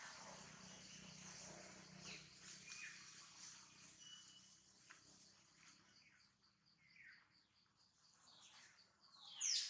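Faint outdoor ambience: a rapid, steady insect pulsing and scattered short, falling bird chirps. Near the end comes one louder high, falling call.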